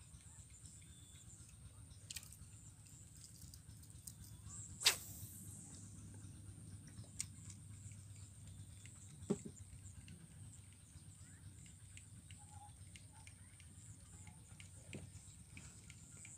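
A fishing rod swished once through the air about five seconds in, giving a sharp whoosh with a short hissing tail, then a few small clicks of rod and reel handling. Under it runs a faint steady high insect drone and a low rumble.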